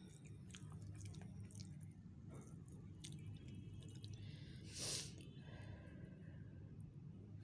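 Faint eating sounds: a spoon clicking and scraping through rice on a steel plate, with chewing. A short, loud breathy rush comes about five seconds in, over a low steady hum.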